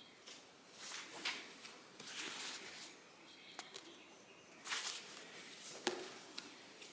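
Short soft rustles and a few light clicks, over faint background birdsong.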